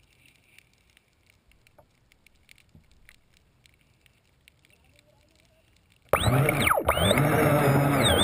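Near silence with faint ticks for about six seconds, then an electric RC boat's motor suddenly runs loud, its whine sweeping down and back up in pitch over a steady hum.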